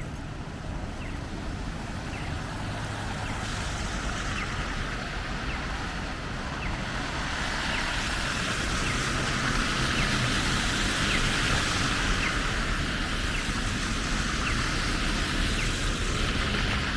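City traffic on wet, slushy streets: a steady low rumble, and a tyre hiss that swells over several seconds and eases toward the end.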